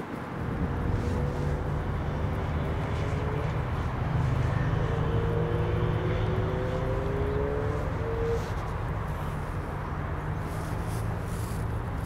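Steady low rumble of a Boeing 777 freighter's jet engines high overhead at cruising altitude, with a faint humming tone that rises slightly between about one and eight seconds in.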